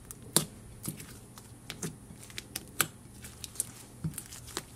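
A hand squishing and kneading sticky white glue slime, activated with borax: irregular little clicks and pops, a few a second, as the slime is pressed and squeezed.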